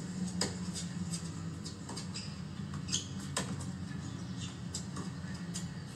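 Tennis rally on a hard court: sharp pops of racquets striking the ball and the ball bouncing, the two strongest about three seconds apart, with lighter clicks in between, over a steady low hum.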